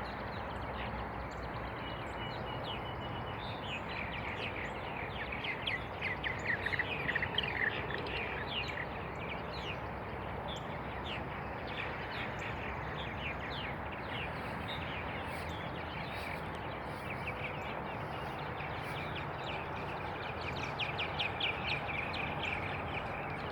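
Many birds chirping and chattering at once over a steady outdoor hiss, the chatter busiest a few seconds in and again near the end.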